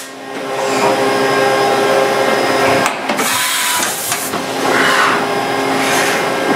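Doosan MX2500 LST multi-axis lathe running its milling head and axes: a steady machine whine and hum, with several short rushing noises over it.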